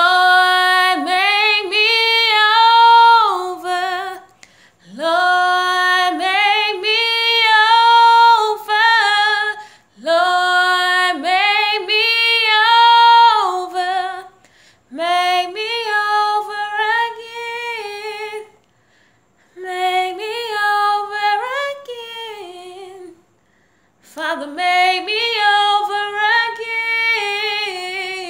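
A woman singing a gospel song a cappella in long, melismatic lines: six phrases of about four seconds each, with held notes and quick runs up and down, and short breaths between them.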